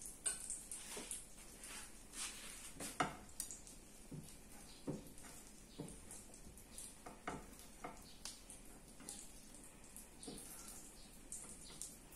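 Pancake and French toast frying in nonstick pans with a faint, steady sizzle, broken by scattered light taps and scrapes of a spatula against the pans. The sharpest knocks come about a third of a second in and about three seconds in.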